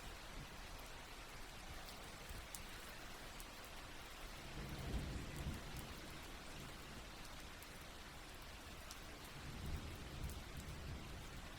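Steady soft rain falling, with scattered individual drops ticking. A low rumble swells twice, about five seconds in and again near the end.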